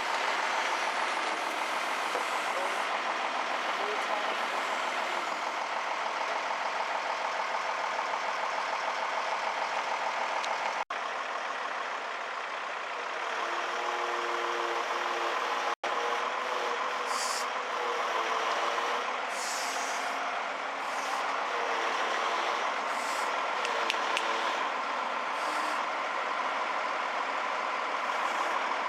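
Heavy-equipment diesel engine running steadily, with short hissing bursts in the second half.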